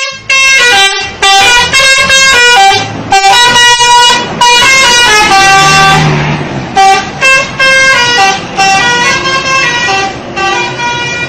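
Indonesian bus "telolet" horn: a set of tuned air horns playing a quick tune of short notes that step up and down in pitch, with brief gaps between phrases.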